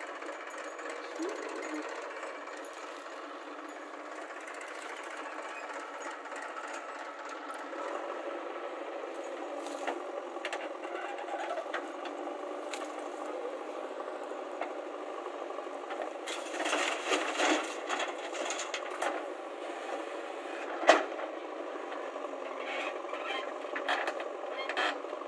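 JCB backhoe loader's diesel engine running steadily as the backhoe digs soil, with scattered clanks and knocks from the arm and bucket: a cluster of them about two-thirds of the way through, then one sharp, loud knock shortly after.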